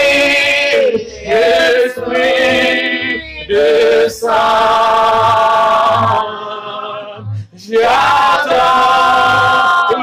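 Voices singing a worship song in long held notes with vibrato, phrase after phrase with short breaks between.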